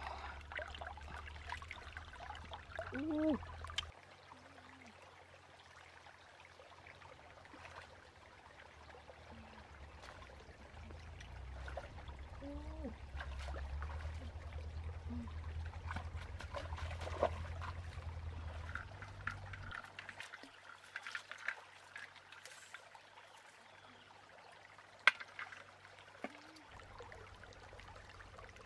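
Shallow stream water trickling over rocks, with small splashes and sharp knocks as hands search among the stones underwater; one knock near the end is the loudest sound.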